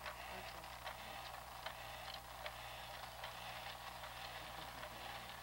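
Quiet room tone on an old home-video recording: a steady electrical hum and tape hiss, with faint scattered clicks and ticks.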